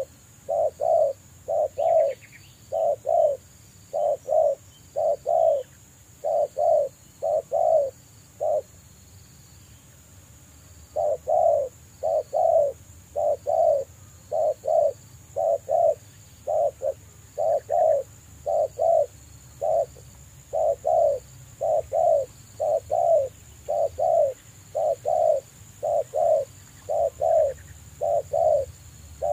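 Spotted dove cooing over and over, deep coo notes at about two a second with a pause of about two seconds about a third of the way in.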